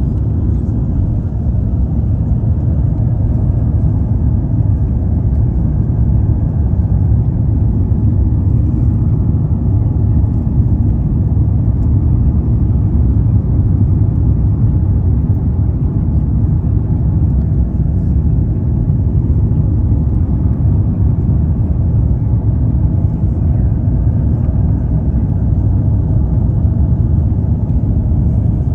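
Cabin noise of an Airbus A350-900 in its initial climb just after liftoff. Its Rolls-Royce Trent XWB engines at climb thrust and the rushing airflow make a steady low rumble.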